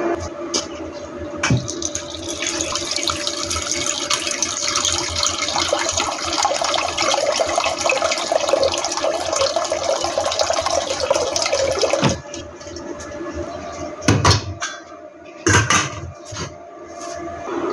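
Water pouring in a steady stream from a water-jug spigot into a stainless steel pot for about ten seconds, then stopping suddenly. Then a few sharp metal clanks as the pot is handled and its lid set on, two of them loud.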